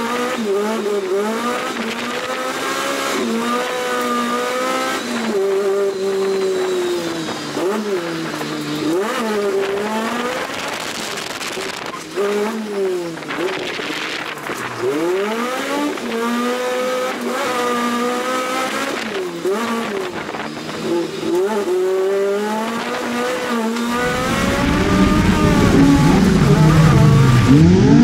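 Toyota AE86 engine heard from inside the cabin while drifting, its pitch rising and falling over and over as the throttle is blipped and shifts are made. About four seconds before the end the sound turns deeper and louder, with the engine pitch climbing.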